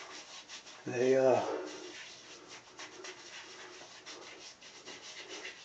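Fingers rubbing over an unshaven face before a shave, a soft scratchy rasp of skin and stubble. A short vocal sound about a second in.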